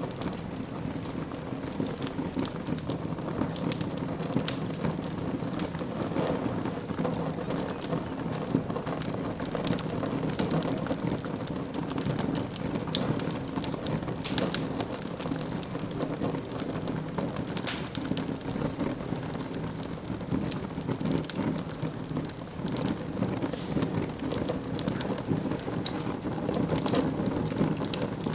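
Wood fire burning in a fireplace: steady crackling over a low rumble of the flames, with a few sharper pops standing out, one about four seconds in, one near the middle and one near the end.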